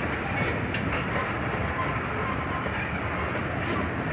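Freight train of tank cars and covered hoppers rolling past, a steady noise of wheels on rail, with a brief high squeal about half a second in.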